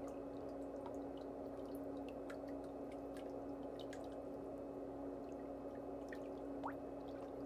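A steady low hum with faint, scattered light ticks, and a brief rising chirp near the end.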